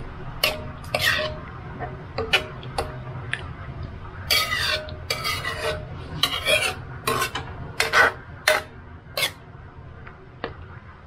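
A cooking utensil scraping and clinking against a pan, stirring minced pork into simmering coconut cream until it cooks. The scrapes come in quick strokes, busiest in the middle, and stop shortly before the end.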